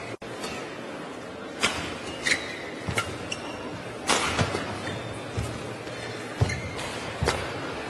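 Badminton rally in a large hall: rackets striking the shuttlecock, about six sharp cracks roughly a second apart, over a steady crowd hum.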